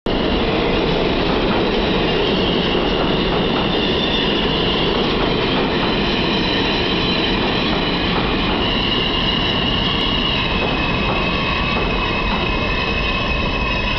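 R160A subway train running into the station: a loud, steady rumble of steel wheels on track. High-pitched wheel squeal rises over it about two seconds in and again through the second half.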